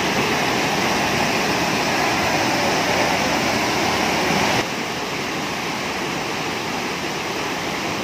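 A waterfall: a steady rush of falling water. A little past halfway it drops abruptly to a slightly lower level and carries on steadily.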